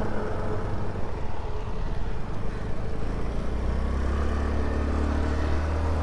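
Scooter engine running as it is ridden along a road, with wind rushing over the microphone. The engine hum grows stronger about halfway through.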